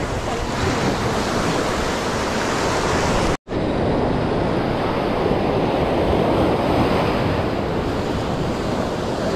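Steady rush of sea waves mixed with wind buffeting the microphone. The sound cuts out completely for a split second about three and a half seconds in, then resumes.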